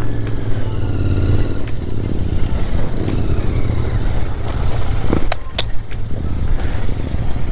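Royal Enfield Interceptor 650's parallel-twin engine running steadily at low riding speed, with two sharp clicks a little over five seconds in.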